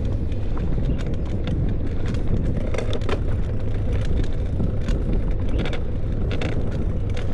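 Steady wind and road rumble from riding a bicycle, with scattered light clicks and rattles.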